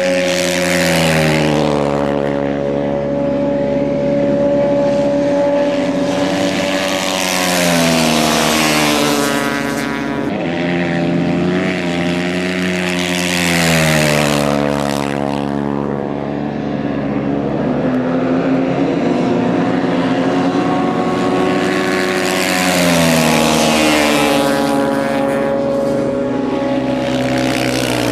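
Motocross bike engines racing, revving and changing pitch as the bikes accelerate and shift. The engine note falls and rises several times, with louder passes about a second in, near the middle and a few seconds from the end.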